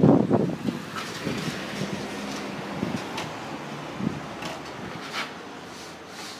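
Typhoon wind gusting, a strong gust on the microphone dying away in the first second, followed by a few scattered rattles and knocks.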